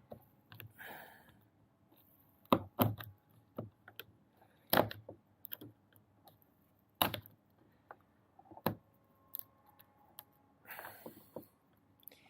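Hand tools picking and prying at stuck, glued plastic latch-protector pieces: irregular sharp clicks and knocks of metal on plastic, with a couple of short scraping noises, one about a second in and one near the end.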